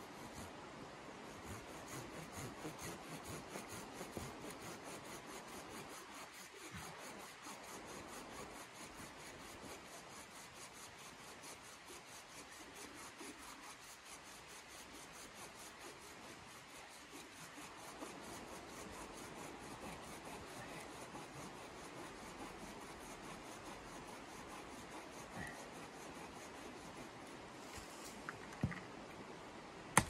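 A hand tool scraping along a wooden pole in steady repeated strokes, with a couple of sharp knocks near the end.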